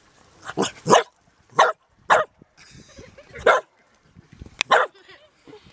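A dog barking at a crab hidden in a rock crevice: about seven short, loud barks at irregular intervals, some coming in quick pairs.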